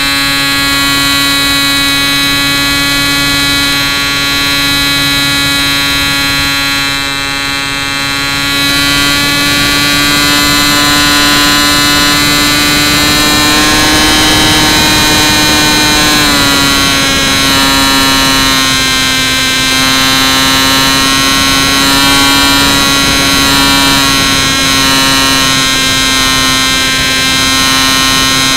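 Brushless electric motor and propeller of a Bixler 2 RC plane in flight, heard through an onboard key-fob camera's microphone: a loud, steady buzzing whine. It gets louder about eight seconds in, its pitch creeps up, then drops a little about sixteen seconds in.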